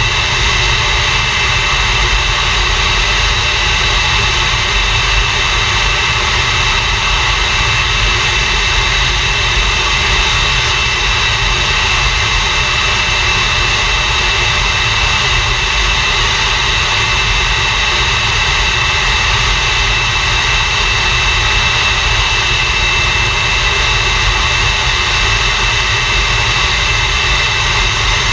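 English Electric Lightning's Rolls-Royce Avon turbojet running steadily on the ground, a constant high whine over a low rumble that holds at one pitch throughout.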